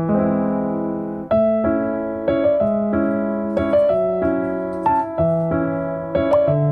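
Background music: a gentle electric piano melody with sustained notes changing about once a second.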